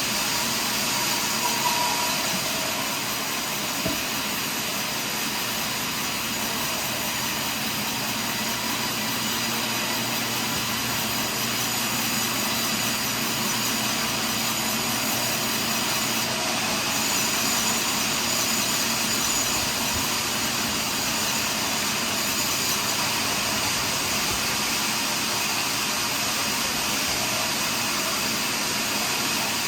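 Sawmill running steadily while milling a large pine log: a continuous loud machine noise with steady tones on top, unchanged throughout.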